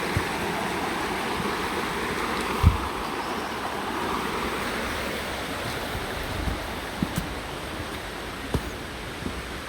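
Rushing rainforest creek water: a steady, even hiss that eases slightly in the second half. A few short, soft thumps stand out, the loudest about three seconds in.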